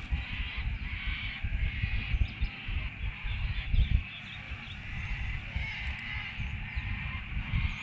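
Low, uneven rumble of wind buffeting the microphone, with birds chirping and calling and a steady high hiss of dusk ambience over the water.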